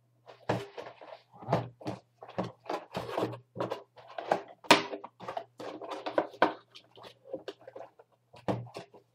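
Cardboard box and its cardboard insert being handled and pushed back together: an irregular string of knocks, scrapes and rustles of cardboard, over a steady low hum.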